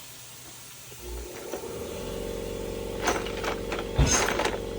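A small electric motor starts up about a second in and runs with a steady hum, while metal parts clink and rattle a few times over it.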